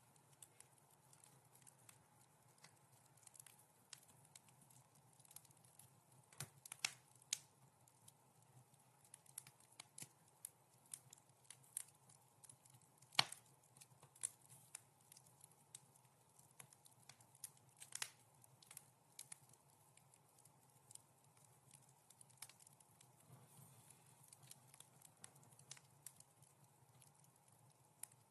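Soft crackling of a wood fire in a fireplace: irregular sharp pops and snaps over a faint steady hiss, the loudest pop about thirteen seconds in.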